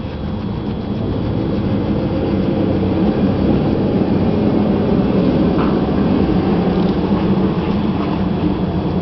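A steady low mechanical rumble that grows a little louder about a second in and then holds even.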